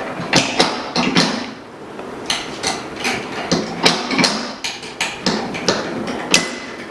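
Metal moulds of a phone-screen laminator being taken off and handled: an irregular run of sharp metallic knocks and clinks, about two a second, some ringing briefly.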